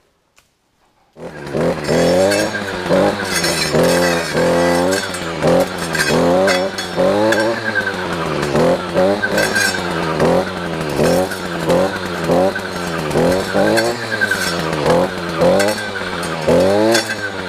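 A motor vehicle's engine revving up and down over and over, about once a second or a little faster, starting abruptly about a second in.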